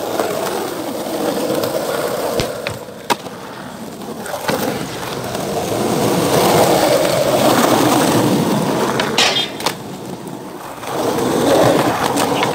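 Skateboard wheels rolling on concrete pavement, a steady rolling noise that swells and fades. Several sharp clacks of the board cut through it, two of them close together about nine seconds in.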